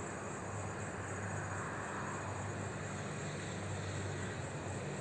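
Night insect chorus of crickets chirring steadily, over a low steady hum.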